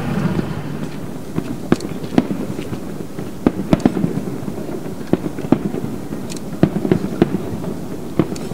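Fireworks display bursting: a string of sharp bangs at irregular intervals, some in quick clusters, over a steady low background din.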